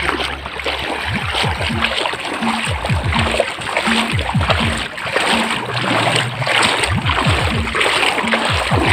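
Legs wading through shallow river water, a continuous run of splashing and swishing with each step.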